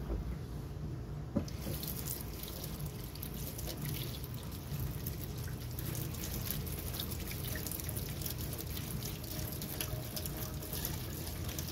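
A short knock, then a kitchen faucet runs steadily from about a second and a half in, water splashing through a mesh strainer of papaya seeds into a stainless steel sink.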